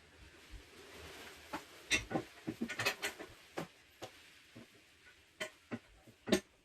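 Irregular clicks and knocks of rowing-machine parts being handled and fitted together during assembly, with the sharpest knocks about two, three and six seconds in.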